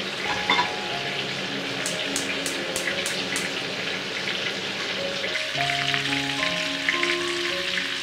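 Marinated chicken pieces shallow-frying in hot oil and butter: a steady sizzle, with background music. About two seconds in, a quick run of sharp clicks as a gas hob burner is ignited.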